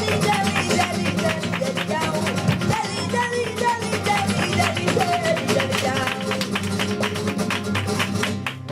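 Live flamenco tientos music: flamenco guitar playing over a steady low bass, with many rapid percussive strikes running through it.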